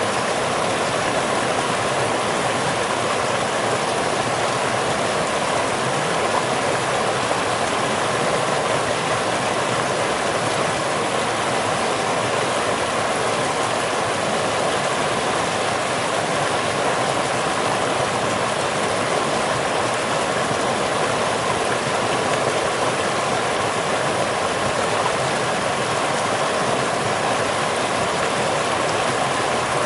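Rushing water, as of a stream or small waterfall, running in a steady unbroken wash.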